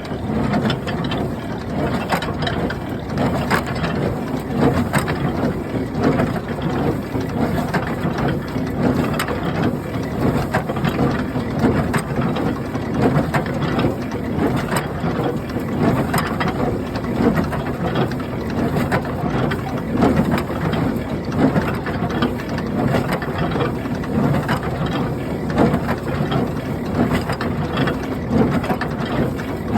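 International Harvester 47 hay baler running, its twine-tie mechanism clattering and clicking steadily, with a regularly repeating louder stroke.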